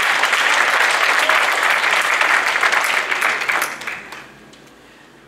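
A church congregation applauding, many hands clapping at once, which dies away about four seconds in.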